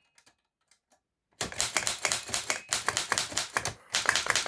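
Remington Portable typewriter being typed on: a rapid run of typebar strikes starting about a second and a half in, with a brief pause near the end before the typing resumes.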